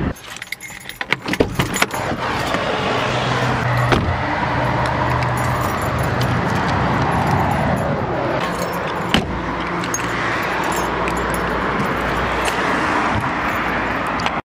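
A burst of small clicks and rattles in the first couple of seconds, then steady car interior noise while driving: engine hum under road and tyre noise. The sound cuts off abruptly near the end.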